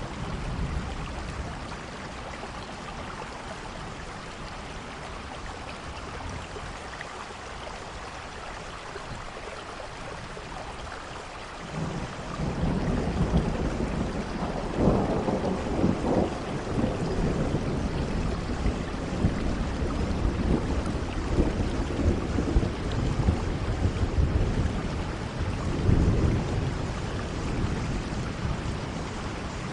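Steady rain with thunder: a low rumble sets in about twelve seconds in and rolls on over the rain, swelling a few times.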